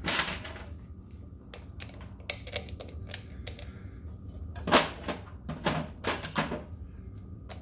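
Scattered light clicks and metallic taps of hand work: bolts being handled and fitted by hand into the split aluminium rim of an electric scooter's hub-motor wheel, with a few louder knocks in the second half.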